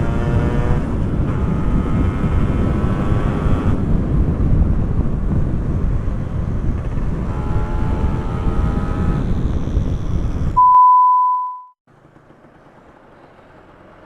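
Wind rushing over the microphone and engine noise from a moving motorcycle, which cut off abruptly about ten seconds in. A steady, high single-pitch beep then sounds for about a second. After it comes a quiet low hum.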